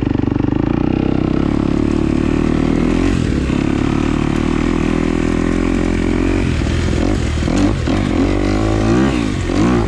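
Off-road dirt bike engine running under way, steady at first, then rising and falling with the throttle over the last few seconds.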